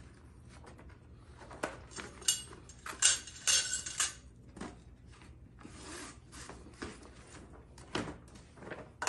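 Fabric closet shelf panels rustling and tubes scraping as the tubes are slid into the fabric sleeves, in irregular bursts with a few sharper knocks, loudest about three to four seconds in.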